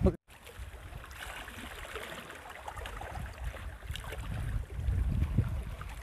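Wind rumbling on the microphone over small waves lapping at the shore, with a faint patter of water.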